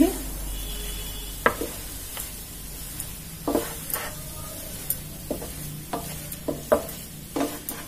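Wooden spatula stirring and scraping a thick amla and jaggery paste in a pan over the heat, with irregular knocks of the spatula against the pan and a low sizzle from the cooking paste.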